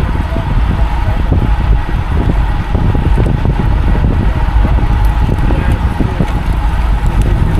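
Wind buffeting the microphone of a camera on a road bike ridden at speed: a loud, steady, fluttering rumble, with road and tyre noise under it.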